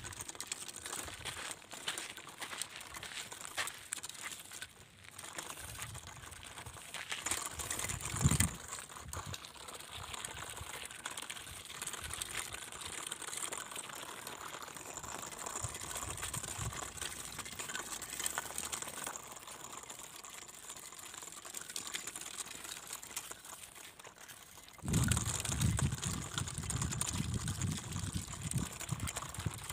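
Scratchy crackling and crunching of grit as a cardboard toy road roller with a soda-can drum moves over dry, gravelly dirt. A louder, lower rustling comes in near the end.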